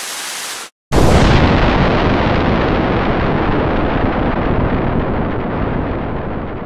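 Cartoon explosion sound effect of a plugged cannon backfiring: a steady hiss, a short silence, then a loud blast about a second in that trails off into a long rumble, slowly fading.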